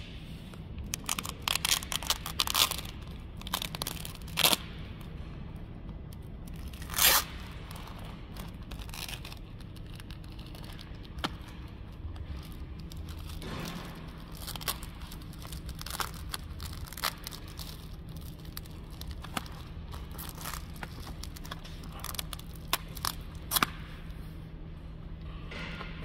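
Thin plastic skin-pack film being peeled off a plastic food tray, crackling and ripping in short irregular bursts, with a steady low hum underneath.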